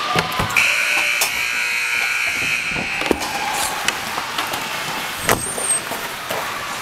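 Ice rink scoreboard buzzer sounding one steady high-pitched blast of about two and a half seconds, starting half a second in, marking the end of the game. Skate blades and sticks clack on the ice around it.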